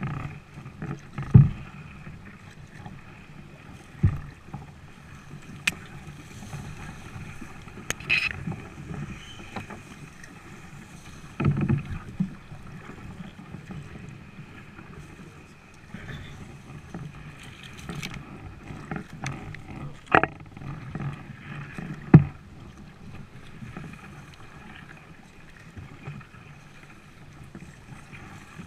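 Kayak being paddled through dense reeds: paddle strokes in the water and reeds brushing the hull, with irregular sharp knocks against the hull. The loudest knocks come about a second in and again late on.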